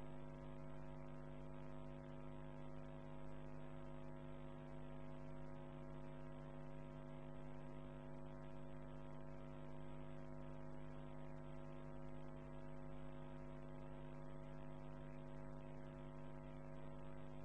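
Steady electrical mains hum in the recording, a low buzz with a stack of even overtones and a faint hiss, unchanging throughout.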